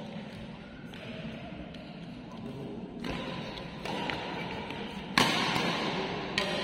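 Badminton rackets hitting a shuttlecock during a doubles rally: a few sharp hits that echo in the hall, the loudest a little after five seconds in.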